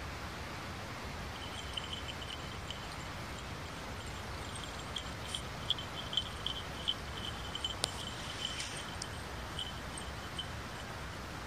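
Night-time open-air ambience: a steady hiss with faint, irregular high-pitched chirping or tinkling through most of it, and a single sharp click a little after the middle.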